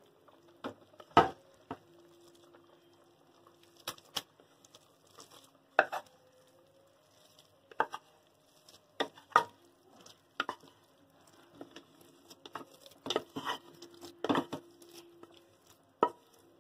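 Spatula knocking and scraping against aluminium cooking vessels as soft-cooked rice and dal is scooped into a pressure cooker of simmering vegetable sambar: irregular clacks, a dozen or more, some in quick pairs.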